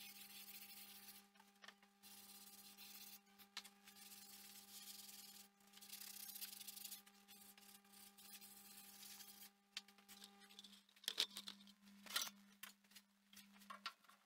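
Near silence: a faint steady hum with a soft hiss that comes and goes, and a few light clicks and knocks near the end.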